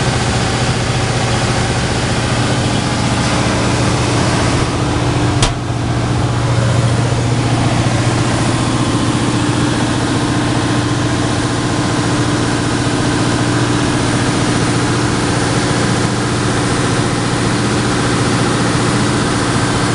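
Capital SDM-37A wide belt sander running steadily under its three-phase electric motors, with the main sanding head and the feed belt going: a loud, even hum with a higher steady tone over a wash of noise. One sharp click about five and a half seconds in.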